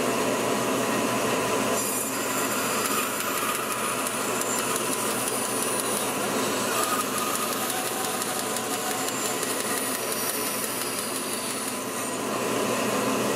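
Bandsaw running and cutting a basswood blank along a curved pattern line, a steady machine noise with a faint high whine from the blade while the wood is being fed, over the steady noise of a dust collector vacuum.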